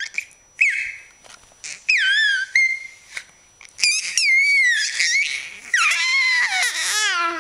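Baby squealing with laughter: a run of about five high-pitched shrieks, the last one long and falling in pitch near the end.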